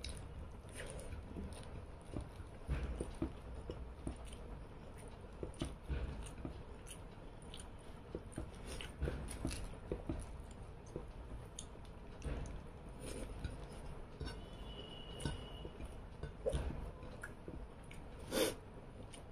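A person eating rice and fish curry with her hand: close chewing and mouth sounds, with many small clicks as fingers work the rice on the plate. A single louder short sound comes near the end.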